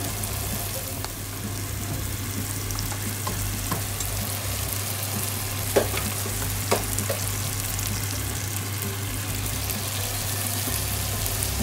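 Onions, tomatoes and garlic sizzling in oil in a nonstick frying pan, stirred with a wooden spatula as mung beans go in. Two short sharp knocks a little past the middle.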